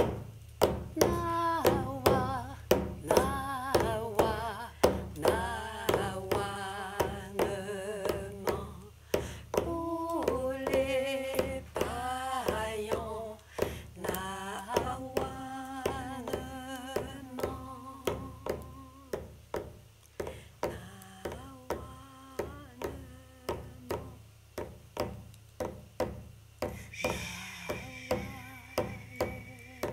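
Two women singing a chant together, accompanied by steady beats on hand-held frame drums struck with a beater, about two beats a second.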